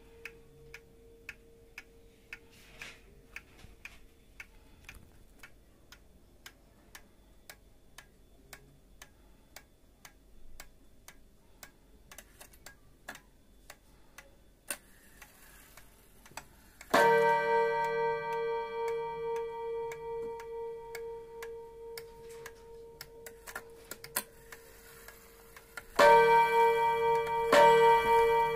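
1960 Seiko 30-day pendulum wall clock ticking steadily at about two to three ticks a second. About 17 seconds in, it strikes once and the note rings on, slowly fading. Near the end come two more strikes, a second or so apart.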